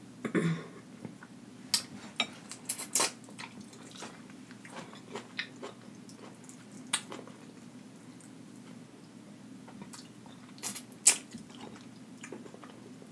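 Close-miked chewing and wet mouth smacks while eating sauce-drenched rotisserie chicken. Sharp smacks come irregularly every second or so, the loudest near the end.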